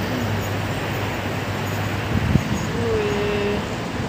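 Steady traffic noise from cars passing on a busy road, mixed with strong sandstorm wind on the microphone. There is a single sharp knock about halfway through.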